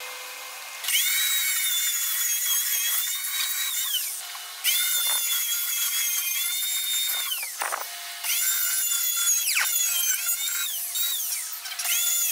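Trim router motor whining at high speed while cutting a mortise in a jig, in four spells of about three seconds with short breaks between them. The pitch drops at the end of several spells.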